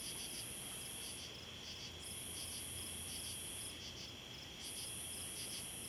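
Chorus of night insects, mainly crickets: a steady high trill with a pulsing chirp above it, and a still higher buzz that starts and stops every couple of seconds.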